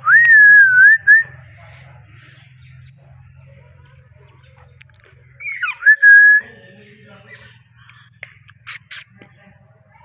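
Rose-ringed (Indian ringneck) parakeets whistling: a loud, wavering whistle lasting about a second at the start, another just past the middle that opens with a quick downward sweep and then holds its pitch, and a few short, sharp chirps near the end. A faint low hum runs underneath.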